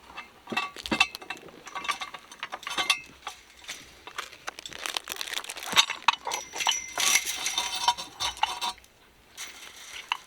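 Metal tools and parts clinking and clattering in irregular runs of sharp clicks, busiest through the middle and thinning out near the end.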